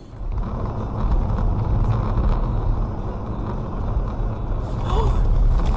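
Steady low rumble of road and engine noise inside a moving car, as a dashcam records it.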